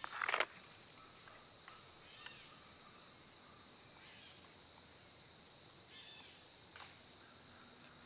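Steady high-pitched drone of an insect chorus, with a short loud burst of noise just after the start and a few faint chirps.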